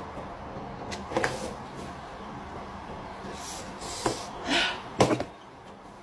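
Close-up eating sounds from a person chewing a mouthful of petai with sambal: a few sharp mouth smacks and crunches, the loudest about five seconds in, with a short hissing breath just before it.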